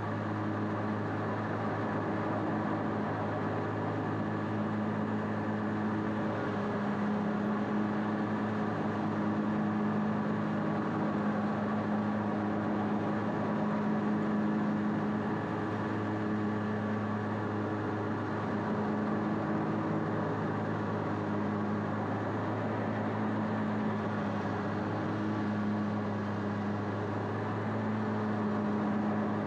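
Bad Boy ZT Elite zero-turn riding mower's engine running at a steady speed while mowing, a constant drone with no change in pitch.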